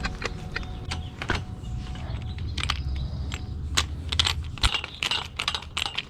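Metal bike-rack pipes and fittings being handled and snapped together: a run of light metallic clicks and clinks, coming thicker about four seconds in.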